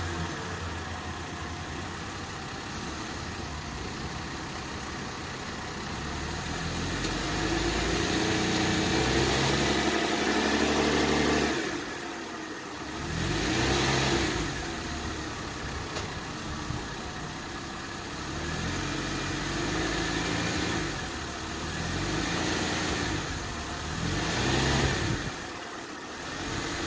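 The 3.7-litre V6 of a 2005 Mercedes ML350 (W163) running at idle and revved several times: one held rev of about five seconds, then a few shorter blips. The engine is being run to show a failed motor mount.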